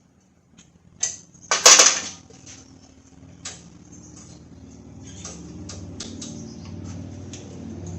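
Metal clanks and a brief rattling clatter of metal parts being handled, loudest about a second and a half in, followed by scattered lighter clicks. A low engine-like rumble slowly grows in the background over the second half.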